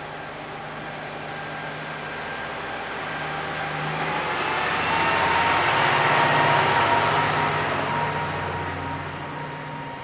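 A vehicle passing by, its noise swelling to a peak about six seconds in and then fading, with a faint steady whine in it, over a steady low hum.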